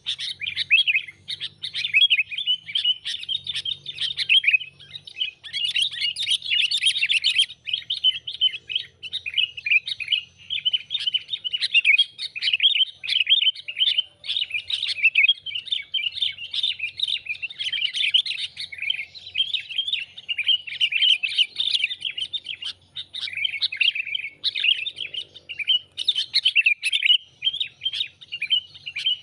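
Sooty-headed bulbuls (kutilang) chattering, a dense, unbroken stream of short, quick chirps with no pauses. This is a lure call, played to draw in wild bulbuls.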